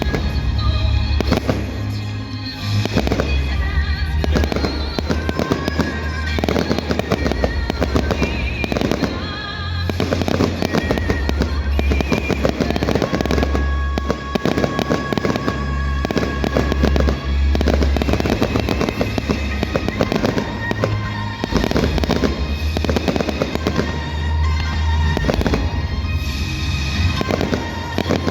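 Fireworks display bursting and crackling continuously, with loud music playing along and a heavy low booming underneath.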